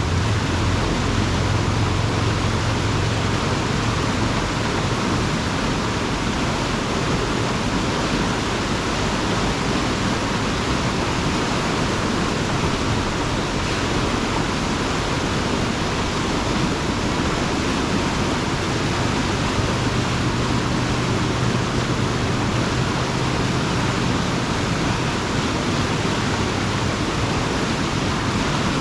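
Beaver-pond water rushing steadily through a 4-foot culvert that has just been unclogged of a beaver dam. The low hum of an excavator engine sits underneath, a little stronger about two-thirds of the way through.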